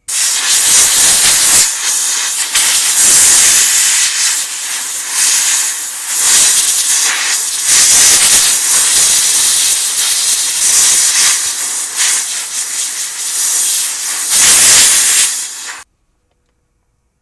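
Compressed-air blow gun with a rubber tip blowing air in a loud hiss that swells and eases as the trigger is worked, stopping suddenly near the end.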